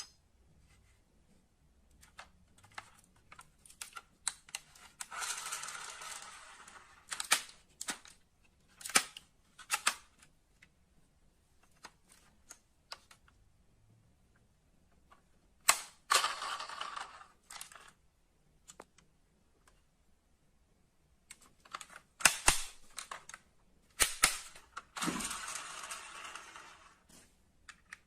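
Die-cast metal model cars being handled: sharp clicks and knocks of metal and plastic parts and of the models set down, with three stretches of a couple of seconds of rough rolling or scraping noise.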